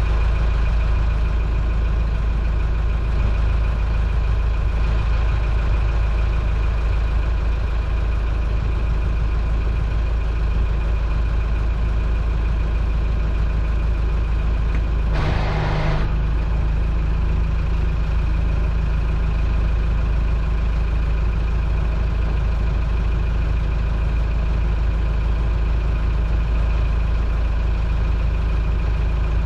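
Towboat's engine running steadily at low speed while towing, a deep constant rumble with a thin steady whine above it. About halfway through there is a brief rushing noise lasting under a second.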